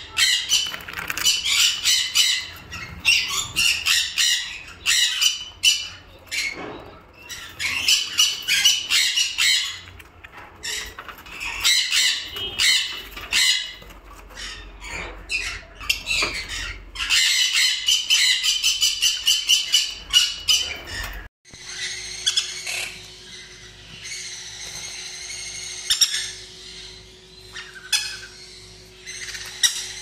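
Sun conures screeching, with loud, harsh calls repeated in quick runs. About two-thirds of the way through, the sound cuts abruptly to quieter, scattered bird calls over a steady low hum.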